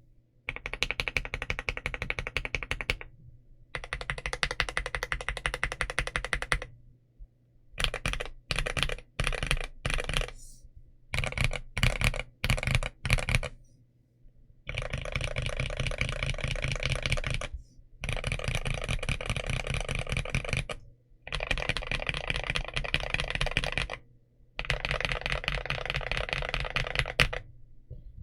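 Modded RoyalAxe L75 mechanical keyboard with Gateron Yellow Pro linear switches being typed on fast, in runs of rapid keystrokes a few seconds long with short pauses between them. In the middle the typing breaks into shorter separate clusters of key presses.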